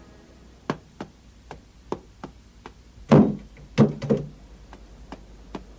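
High-heeled shoes clicking on concrete stairs, a steady run of footsteps about two a second, with a few louder steps around the middle.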